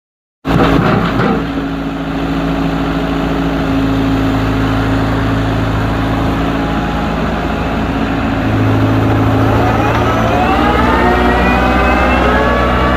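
Excavator's diesel engine running steadily, starting abruptly about half a second in; near the end a rising whine joins the engine.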